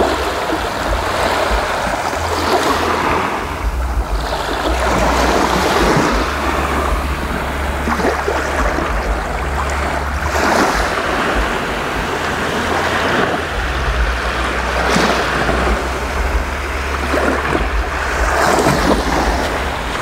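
Small waves breaking and washing up over the sand, swelling and easing every few seconds, over a low rumble of wind on the microphone.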